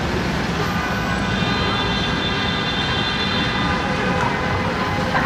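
Steady low rumble at a cable car stop, with a steady high-pitched whine that starts about a second in and stops about four seconds in.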